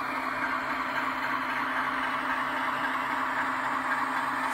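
OO gauge model Class 60 diesel locomotive with a DCC sound decoder, playing a recorded Class 60 engine running at low power through its small onboard speaker as it creeps along the track. It makes a steady hum with an even hiss over it, and does not change.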